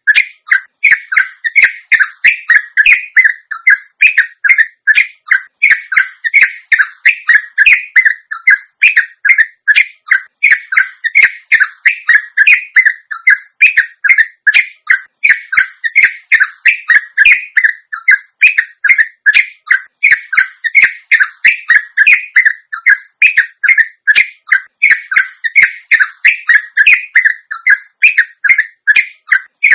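Sooty-headed bulbul (trucuk) chattering in a long, rapid-fire 'ropel' run: short, bright notes repeated several times a second without a break.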